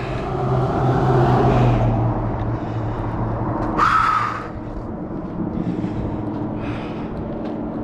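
Road traffic on a paved highway: a vehicle's engine hum and tyre noise, steady for the first few seconds and then easing off, with a short, louder rush about four seconds in.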